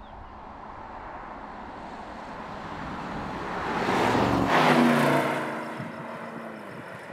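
2021 Porsche Cayenne GTS with its twin-turbo V8 driving past at speed. The engine and tyre noise build as it approaches and peak about four and a half seconds in as it passes close by. The engine note then drops in pitch and fades as it pulls away.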